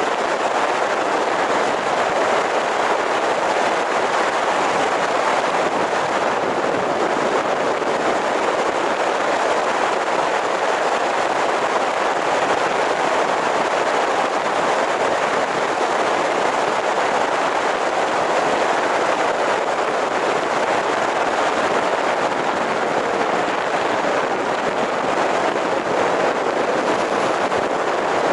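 Steady road noise of a car driving: an even rush of tyre and wind noise that holds level throughout, with no engine note standing out.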